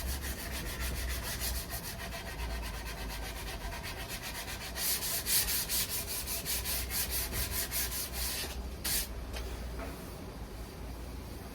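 Wood being sanded by hand with sandpaper, quick back-and-forth scratching strokes about three or four a second, stopping shortly before the end.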